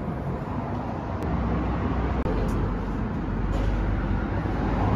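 Steady background rumble of road traffic.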